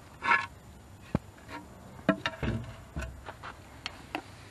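Scattered clicks and knocks, a short scrape and two dull thuds as a tool is worked into the hole of a water meter box lid and the lid is pried up.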